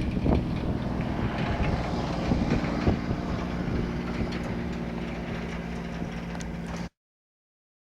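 Valtra tractor's diesel engine running steadily under load while ploughing, with scattered knocks and rattles. The sound cuts off suddenly near the end.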